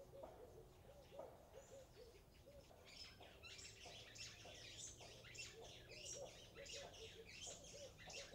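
Faint background birds: a low, short call repeated over and over, with higher chirping joining in about three seconds in.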